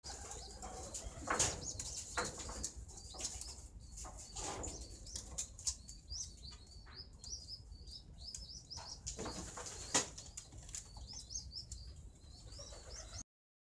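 Pigeons in a wire-mesh loft: wings flap now and then, loudest about a second and a half in and again near ten seconds, over steady high-pitched bird chirping.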